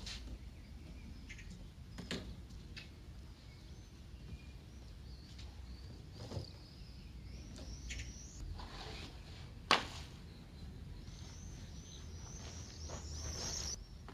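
Foil-covered reflective solar cooker panel being unfolded and handled, crinkling and rustling, with a few sharp clicks; the loudest comes near the ten-second mark. Birds chirp and twitter throughout, most busily near the end.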